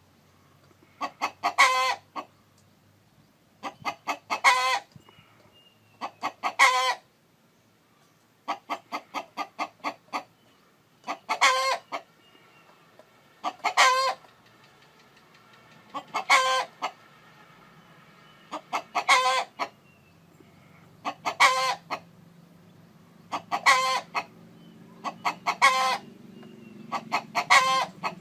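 Chicken calling in about a dozen repeated phrases. Each phrase is a quick run of short clucks that ends in one louder call, coming every two to two and a half seconds.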